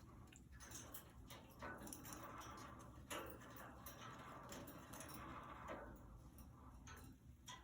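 Budgies moving about in their cage: faint, irregular little ticks and taps.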